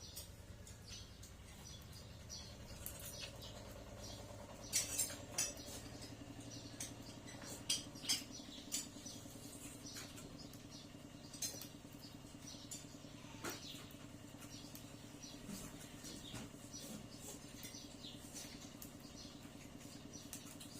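Pet lovebirds moving about: scattered sharp clicks and scratches, loudest in two clusters about five and eight seconds in, over a steady low hum.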